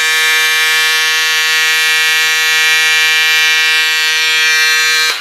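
Pink Power electric cordless scissors running as they cut through two layers of satin. The small motor gives a loud, steady buzzing whine that holds one pitch and cuts off suddenly at the end.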